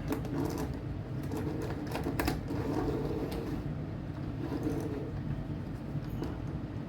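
Steady low electric hum, with a few light clicks and taps of handling around two seconds in.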